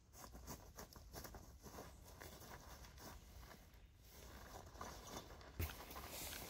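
Faint rustling and small clicks of nylon tarp bags being handled on gravelly ground, with one soft thump about five and a half seconds in.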